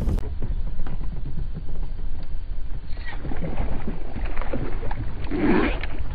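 A chain pickerel thrashing and splashing at the surface right beside a kayak, in a run of rough splashes from about three seconds in, the biggest near the end. Wind rumbles on the microphone throughout.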